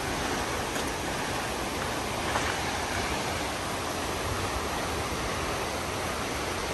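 Waterfall crashing down at a strong flow, a steady, even rush of falling water.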